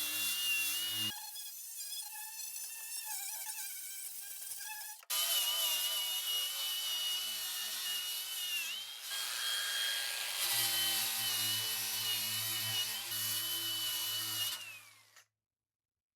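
Electric drill-type power tool running in a series of short cut clips, a steady whine that dips briefly in pitch now and then as it bears on the work. The sound drops out abruptly near the end.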